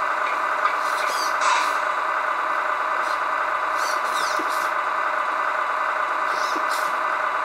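Tamiya MFC-01 sound unit in a 1/14 Scania RC truck playing a steady diesel truck idle through its small speaker. Several short clicks and hisses are heard on top of it.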